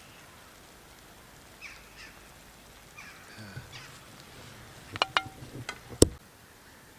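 Faint bird calls, then a quick run of sharp clicks and knocks, the loudest a single knock about six seconds in.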